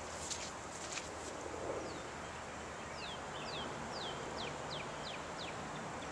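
A small songbird singing a run of about eight short, high falling whistles at about three a second, over steady outdoor background hiss. A few sharp clicks come in the first second.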